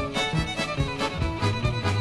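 Ukrainian-Canadian polka band music played from a vinyl LP, with a steady beat in the bass.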